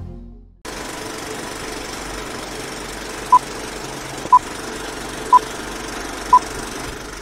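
Intro music fades out, then an old film-leader countdown effect: the steady rattling whir and crackle of a film projector, with a short beep once a second, four times.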